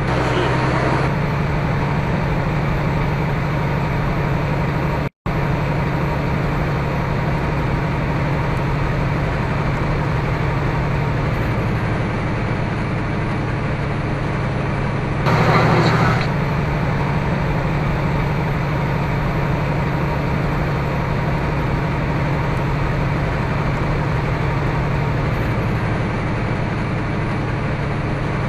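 Steady low drone of a semi-truck's engine and road noise heard from inside the cab while cruising at highway speed. The sound cuts out briefly about five seconds in, and there is a short louder rush of noise around the middle.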